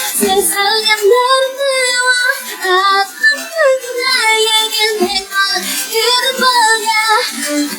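Female pop vocals singing a melody with layered backing harmonies. The track is filtered to the vocals, with almost no bass.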